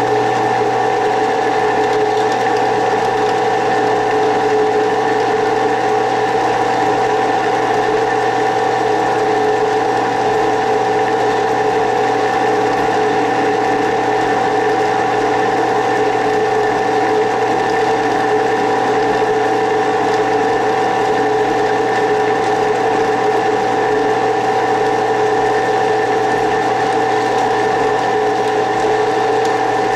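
Drill press running at a steady speed while a twist drill cuts a hole into a block of aluminum: a steady motor hum with several held tones that does not change.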